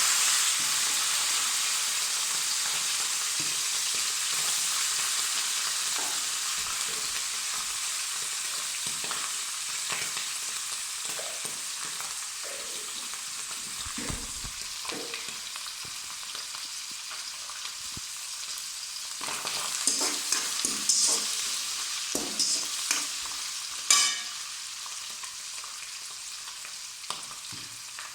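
Hot oil sizzling in a pan as ingredients fry, the hiss slowly dying down. From about two-thirds of the way in come irregular knocks and scrapes of stirring in the pan.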